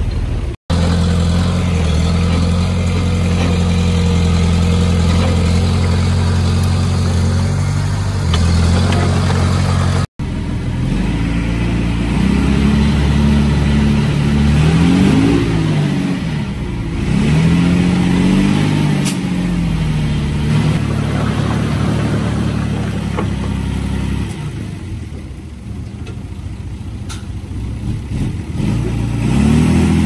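Heavy diesel engines of earthmoving machinery at work. A steady, loud engine drone is cut off abruptly twice, then an engine revs up and down several times. It eases off and climbs again near the end.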